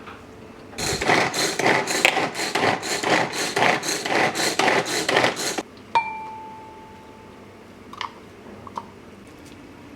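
Kitchen utensil noise: a few seconds of fast, rhythmic scraping and rattling in a bowl or pan, then a single clink that rings on for about a second and a half, and a couple of light knocks.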